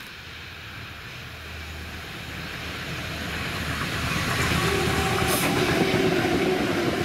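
A train approaching along the line, its running noise growing steadily louder over the first four seconds and then holding loud, over a steady low hum. A faint tone comes in over the noise near the end.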